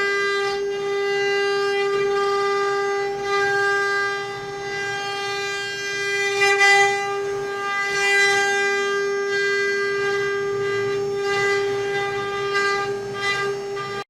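Mini CNC wood-carving router running, its spindle giving a steady high whine, with several short rasping surges as the bit cuts into the wood.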